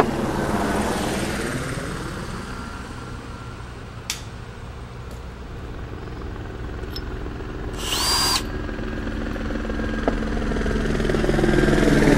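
A steady mechanical drone that grows louder toward the end, with a short whirr of a cordless drill about eight seconds in and a sharp click just after four seconds.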